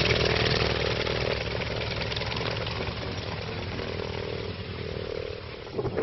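North American T-28 Trojan's radial engine and propeller running at taxi power, a steady drone that grows gradually quieter as the aircraft moves away.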